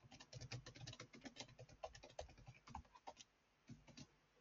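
Faint typing on a computer keyboard: a quick, uneven run of key clicks that stops about four seconds in.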